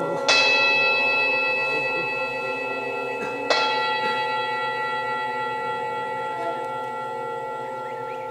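A metal bell struck twice, about three seconds apart; each strike rings on with many overtones and slowly fades.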